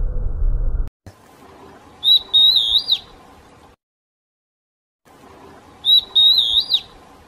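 Formigueiro-pintalgado, an antbird, singing two short phrases of high, clear whistled notes that bend in pitch, about two seconds and six seconds in. Before that, a low rumble cuts off just under a second in.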